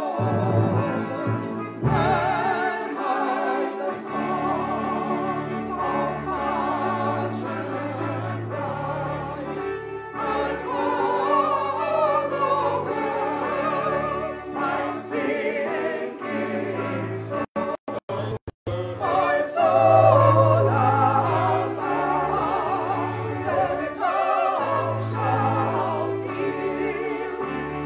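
Church choir singing a hymn in several voices, with low bass notes held underneath. The sound cuts out briefly several times about two-thirds of the way through.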